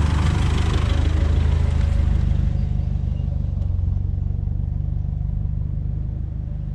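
Four-wheel-drive vehicle's engine running steadily while driving, a low even drone with road noise over it that eases slightly toward the end.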